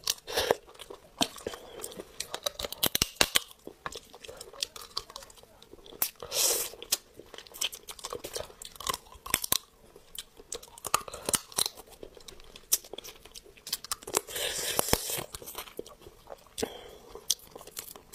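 Cooked hermit crab shell being cracked and picked apart by hand, with sharp snaps and clicks of the shell and chewing of the crab meat. There are longer crackling stretches about six seconds in and again around fourteen to fifteen seconds.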